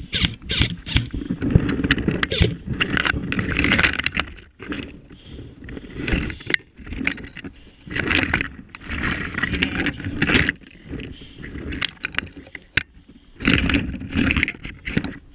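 Dense undergrowth rustling and scraping against clothing and gear as someone pushes through it on foot, in irregular bursts with brief pauses.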